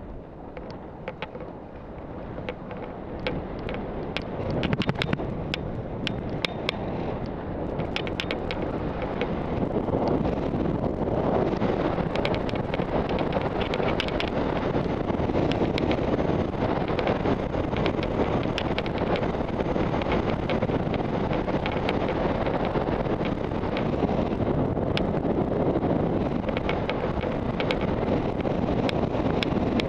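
Wind buffeting a helmet-mounted camera's microphone during a fast ski descent, mixed with the hiss of skis running over soft spring snow and many scattered sharp clicks. It grows louder over the first ten seconds as speed builds, then holds steady.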